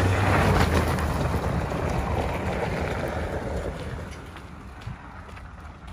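Ford Raptor pickup truck driving away, its low engine drone loudest at first and fading steadily over about four seconds.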